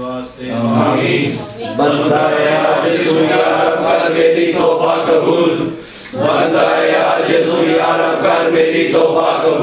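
Congregation of men chanting a prayer together in unison, in long phrases with a short break about two seconds in and another about six seconds in.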